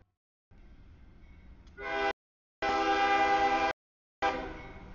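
Freight locomotive's air horn sounding for a grade crossing as the train reaches it, over the low rumble of the train. A blast starts about two seconds in, a long loud blast follows, and a third blast fades off near the end. The sound cuts out to silence briefly between the blasts.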